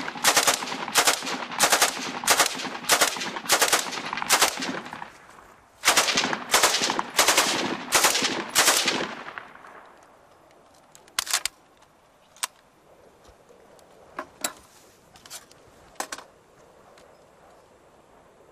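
Stoner 86 (ARES LMG-1) 5.56 mm light machine gun, fed from a rifle magazine, firing a string of shots about two a second, pausing briefly, then firing a second string. A few sharp metallic clacks follow as the gun is handled.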